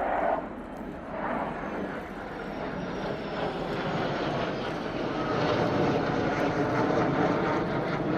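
Military jet aircraft passing, its engine noise building steadily louder, with a thin whine that falls in pitch early on.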